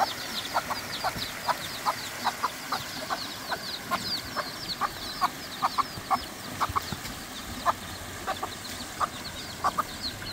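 Domestic hen clucking, about two to three short clucks a second, while her chicks peep nonstop with high cheeps that each fall in pitch.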